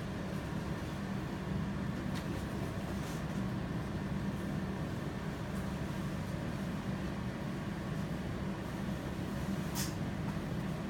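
Steady low background hum, with a faint tick about two seconds in and a sharper tick near the end.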